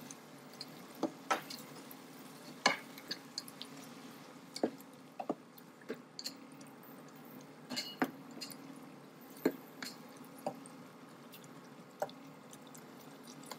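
Thick onion-tomato masala frying in a nonstick pan, bubbling wetly while a nylon slotted spatula stirs and scrapes through it. Scattered sharp taps and pops come about once a second over a steady low hum.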